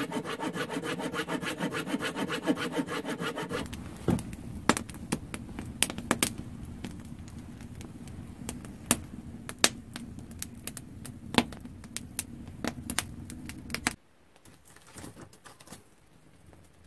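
Hand saw cutting through a log of firewood in quick, even strokes for a few seconds, then a wood fire crackling with many sharp pops.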